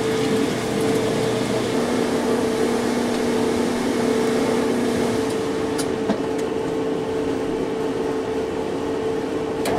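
1985 Kenmore top-loading washer running with a steady motor hum just before its spin cycle; the pitch of the hum shifts about two seconds in.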